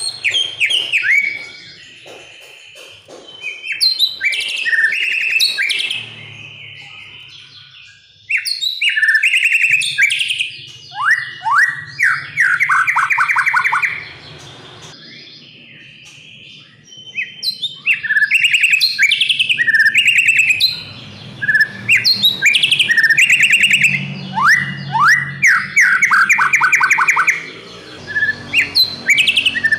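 White-rumped shama (murai batu) singing: varied whistled phrases with fast runs of repeated falling notes and trills, in bursts broken by pauses of a few seconds.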